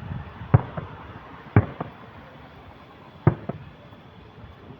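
Fireworks shells bursting overhead: three sharp bangs a second or two apart, each followed closely by a fainter second crack.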